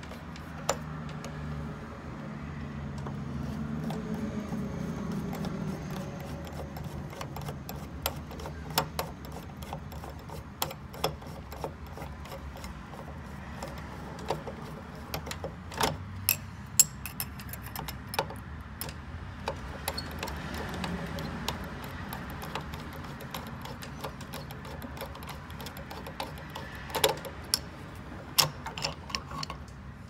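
Screwdriver working the screws of an old Weiser brass doorknob handleset: scattered small metal clicks, taps and scrapes as the knob is loosened and taken off the door.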